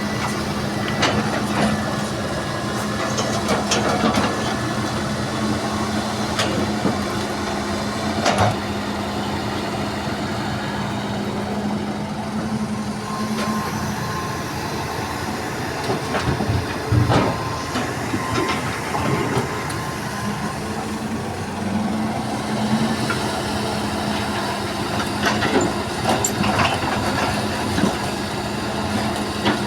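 Hydraulic excavator's diesel engine running steadily while it digs and loads soil and limestone into a dump truck, with intermittent knocks and thuds from the bucket and the falling material, the heaviest a little past the middle.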